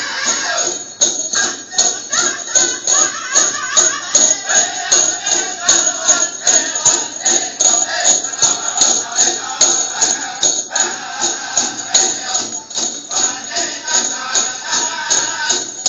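Powwow music for a Prairie Chicken Dance: a drum beating steadily about three times a second under singing, with jingling that keeps time with the beat.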